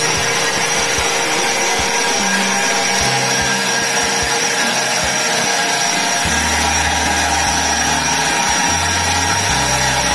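Thermomix blending cooked vegetables into a smooth cream: a loud, steady motor whir with a thin high whine on top.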